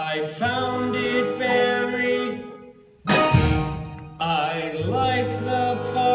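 Live musical-theatre song: a voice singing a melodic line over instrumental accompaniment, with a loud accented chord or hit about three seconds in.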